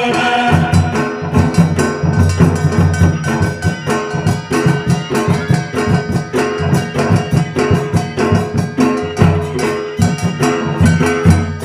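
Fast, loud folk drumming on a barrel drum (dhol) for Danda Nacha dance music, with no singing, over a steady held note.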